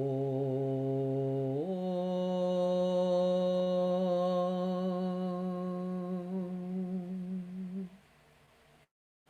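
A woman's voice sounding long, slow sustained tones: a low held note that steps up to a higher note about one and a half seconds in, held steady until it stops about eight seconds in.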